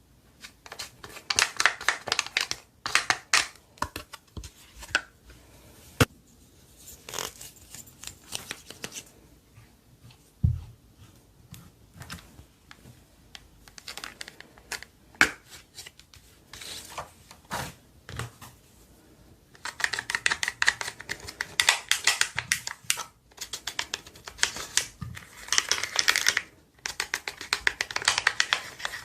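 Hands squishing, stretching and folding slime, making bursts of sticky crackling and clicking. The crackles thin out to scattered clicks in the middle, then come thick and fast again over the last third.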